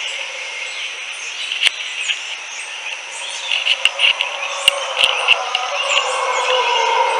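Mantled howler monkeys howling as a low, even roar that swells near the end, under birds chirping and insects trilling. A few sharp clicks come around the middle.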